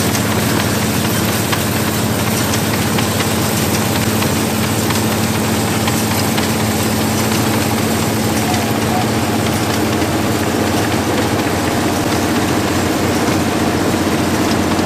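Massey-Harris No. 21 self-propelled combine running steadily as it cuts and threshes a standing crop, its engine and threshing machinery making an even mechanical noise with a low hum.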